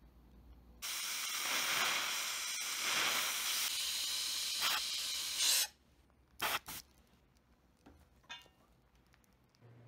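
Dental air-water syringe spraying, a steady loud hiss for about five seconds that cuts off abruptly, as it rinses acid etching gel off front teeth. About a second later come two short bursts of the same hiss, then a few faint clicks.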